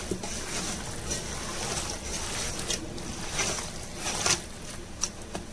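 A bare hand squelching raw mutton pieces in a wet yogurt-and-spice marinade inside a metal pressure cooker. A few sharper squelches stand out in the second half.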